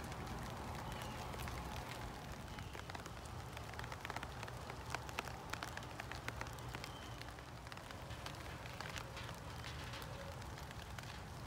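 Steady rain falling, an even hiss with many sharp taps of individual drops landing, heavier and louder about four to six seconds in.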